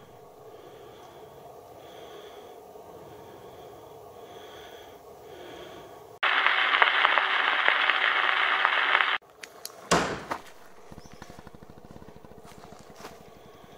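About six seconds in, a loud, even static hiss cuts in and cuts out abruptly three seconds later. Just after it, a door slams shut once with a sharp bang. The narrator takes the slam for an accomplice pulling the door closed with a string.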